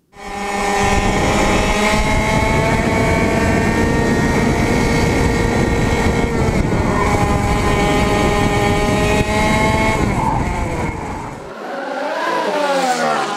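Racing kart engine running hard at high revs down a straight, heard from a camera on the kart's nose, with wind noise underneath. The note holds steady, then drops and climbs again in the last few seconds as the driver lifts and gets back on the throttle.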